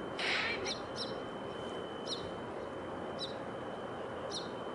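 A small bird chirping: five short, high, falling chirps spaced irregularly, over a steady background hiss of outdoor ambience with a faint high steady tone. A brief harsh noise just after the start is the loudest sound.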